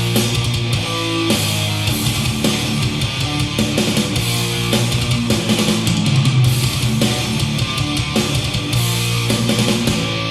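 Heavy rock music with guitar, played through a Telefunken HL 870 CD three-way loudspeaker.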